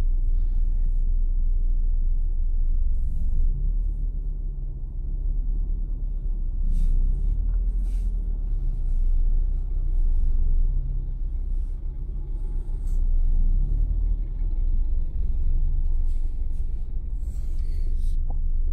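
Car engine and road rumble heard from inside the cabin: a steady low rumble, with a few faint taps now and then.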